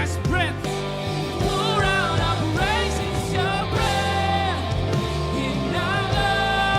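Live church worship band playing, with voices singing held, wavering notes over sustained keyboard-style chords and a steady bass.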